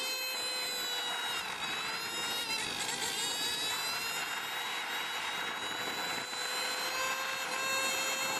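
Small motorbike engine held at high revs during a wheelie, a steady high-pitched whine that dips slightly in pitch about two to three seconds in.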